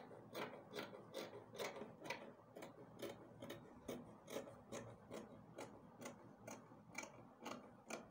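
Scissors cutting through fabric, a steady run of snips about two to three a second.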